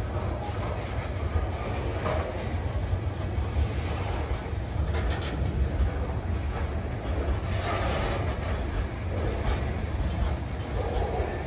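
Freight flatcars carrying open-top waste containers being shoved slowly past: a steady low rumble of rolling wheels with an occasional click of wheels over the rail joints.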